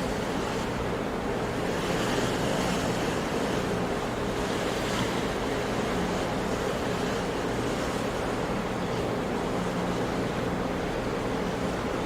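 Ocean surf: waves washing in continuously as a steady rush, swelling slightly now and then.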